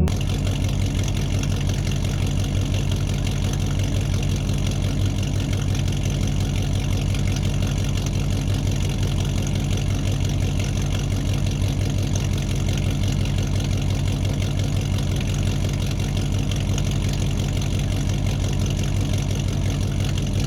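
Engine idling steadily with a rapid, even chug, heaviest in the low end.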